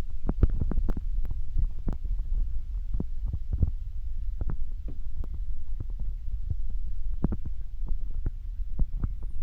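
Spring river flowing: a steady low rumble of water with irregular gurgles and plops, several each second.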